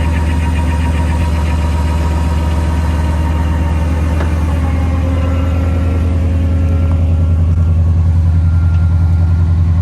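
Off-road wrecker's engine running at low, steady revs, growing a little louder about seven seconds in.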